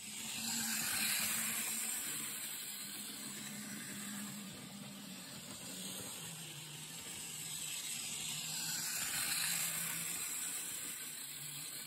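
A small Lionel O-gauge motorized rail vehicle running along three-rail track, a steady mechanical whirring hum with hiss. It swells a second in, eases off, and is loudest about nine seconds in as the vehicle comes close.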